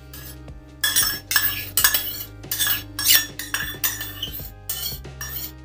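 A steel spoon scraping and knocking against a stainless steel bowl as curd is scooped out of it, a quick irregular run of short metallic clinks and scrapes that starts about a second in.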